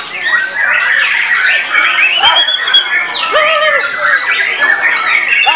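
White-rumped shama singing: a fast, unbroken stream of varied whistles, sliding notes and chattering phrases.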